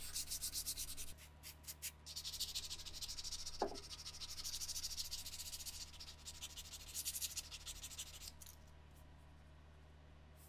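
Hand abrasive rubbed in quick back-and-forth strokes along a steel bayonet blade, a scratchy hiss in several bouts with one short squeak about a third of the way in. The strokes stop a couple of seconds before the end, leaving only a low steady hum.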